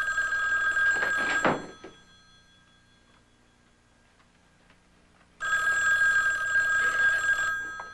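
Telephone bell ringing twice in a steady ring-and-pause rhythm. The first ring cuts off about a second and a half in. A second ring of about two seconds starts some four seconds later.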